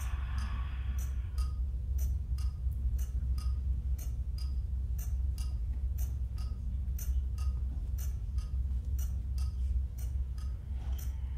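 Underwater hydrophone recording played back: sharp clicks at about two or three a second, unevenly spaced, over a steady low rumble. A hiss fades out about a second in and returns near the end.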